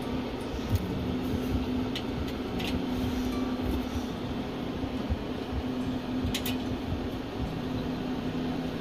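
Steady hum of a GQF Sportsman 1502 cabinet incubator's fan running, with a few light clicks as its plastic egg trays are handled.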